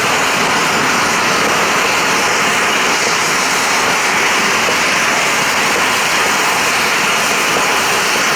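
Firework fountain burning with a loud, steady hiss and no separate bangs.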